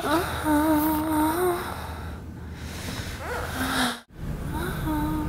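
A woman's wordless voice slides up into a long, slightly wavering held note, a breathy moan-like hum. The sound cuts out briefly about four seconds in, then the voice slides up into another held note near the end.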